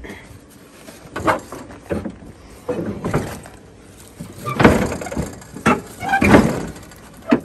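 Recoil pull-starter of a Predator 420 single-cylinder engine being yanked about half a dozen times at irregular intervals, each pull a short loud rasping whir, with the engine not catching and running.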